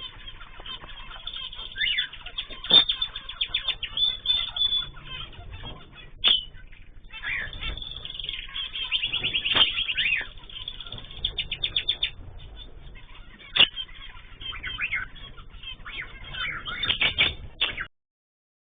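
A mixed flock of cage birds chirping and calling, with rapid trills and quick rising and falling notes, the calls overlapping. It cuts off abruptly near the end.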